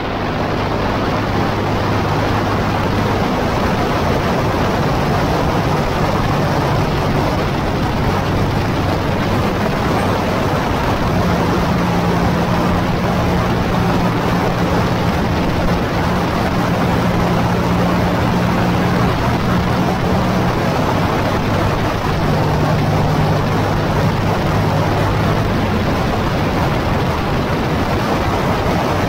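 Motorcycle cruising on a country road: a steady engine hum under a heavy rush of wind noise on the mounted camera. The engine note rises about ten seconds in and drops back down after twenty.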